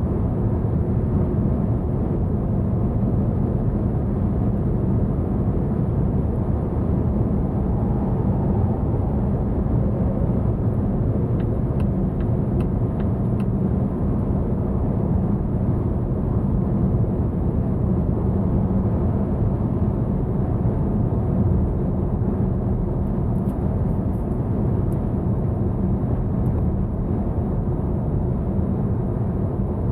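Steady tyre and road rumble with wind noise inside the cabin of a Volvo V90 cruising at highway speed on electric power alone, with no engine running. A few faint ticks come about twelve seconds in.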